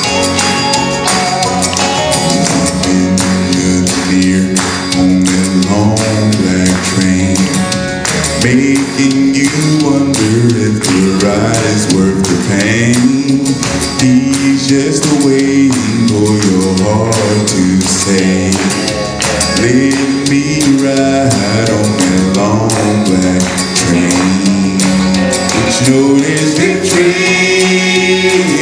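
Male gospel vocal group singing a cappella in close harmony, one lead voice over sustained backing chords from the others, with hand-clapping keeping the beat.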